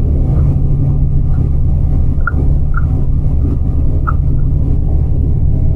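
Steady low rumble of a moving coach bus heard inside the passenger cabin: engine and road noise with a constant low hum, and a few faint short squeaks over it.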